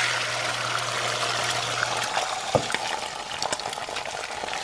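Beaten eggs sizzling in hot avocado oil in a nonstick frying pan, loudest at first and slowly easing off. A single sharp click about two and a half seconds in.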